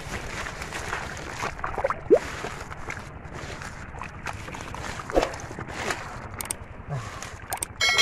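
Sloshing and splashing in shallow muddy water as a person wades and works with his hands in the mud, with many short sharp splashes and squelches. A few short chirps sound faintly in the background.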